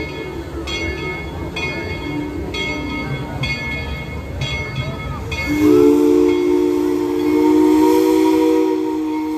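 Steam locomotive No. 190's bell rings about once a second. About halfway through, its steam whistle opens into one long, steady blast that sounds a chord of several notes and is louder than the bell.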